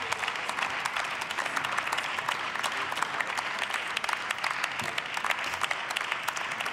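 Members of parliament applauding in a large chamber: many hands clapping at a steady level, marking the end of a speech.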